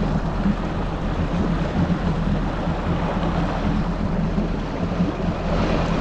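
Yamaha GP1800R SVHO jet ski's supercharged four-cylinder engine running steadily at low speed, a low even hum, with water and wind noise over it.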